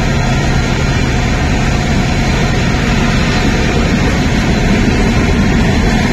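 Indian Railways passenger coaches rolling past on the track as the express pulls out, a steady low rumble mixed with the hiss of heavy rain.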